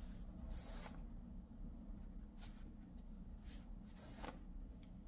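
Faint, soft rustles and scrapes of yarn and crocheted fabric as a metal crochet hook is pushed through stitches and the yarn pulled through, whip-stitching two edges together. About half a dozen brief rustles over a low steady room hum.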